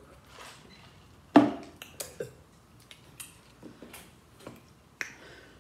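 Plastic cups and tableware knocking and clattering on a table while eating: a solid knock about a second and a half in, a few lighter clicks after it, and another sharp knock near the end.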